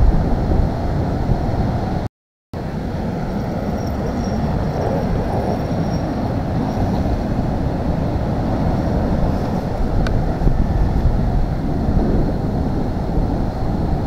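Wind buffeting the microphone over the wash of surf breaking on the beach: a loud, steady, low noise. The sound drops out completely for a split second about two seconds in.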